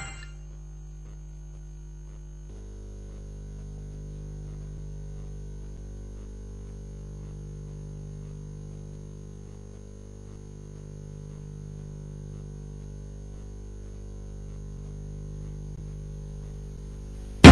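Low steady electrical hum with a faint high whine above it; the hum grows fuller about two and a half seconds in.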